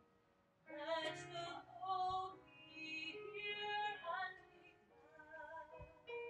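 A woman singing a slow communion hymn in held phrases, starting about a second in, with soft electric keyboard accompaniment underneath.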